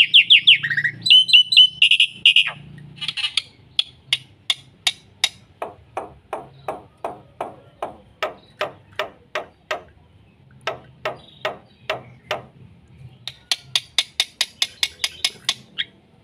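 Black-winged myna (jalak putih) singing. It opens with a fast, high trill, then gives a long series of sharp repeated notes, about two or three a second, with brief pauses. A quicker run of notes comes near the end.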